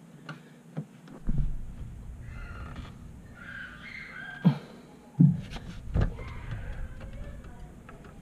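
Handling noise from hands and arm working up inside the wheel-well access opening to twist a xenon bulb into the headlight housing: a few dull knocks against the plastic liner, the loudest about four and a half and five seconds in, over low rubbing and rumbling.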